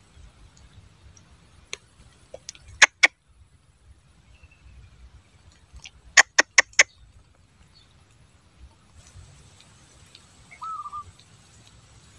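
Quiet outdoor ambience with faint bird chirps, broken by sharp clicks: two about three seconds in and a quick run of four or five a little after six seconds.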